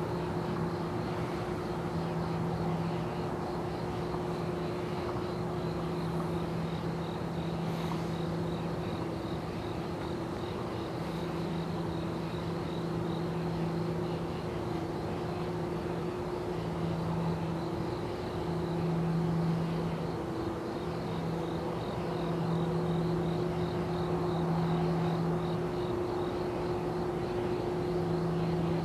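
A steady low mechanical drone with a hum that fades in and out, under a high, evenly pulsing insect trill.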